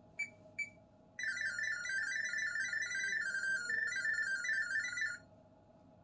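LG refrigerator's Smart Diagnosis signal: two short beeps, then about four seconds of rapidly warbling electronic data tones that stop abruptly, the fridge sending its diagnostic data as sound for the ThinQ app to decode. The data comes up as error FS, a freezer fan fault.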